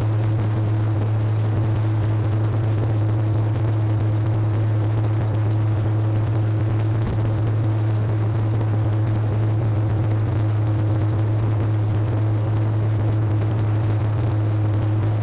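Steady drone of tractor-powered silage-making machinery running under load: a forage wagon unloading chopped hay into a silage bagger. A strong, unchanging low hum runs under the noise of the machines.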